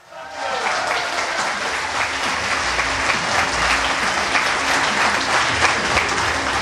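Audience applause: many hands clapping in a dense, steady patter that starts abruptly and stays level throughout.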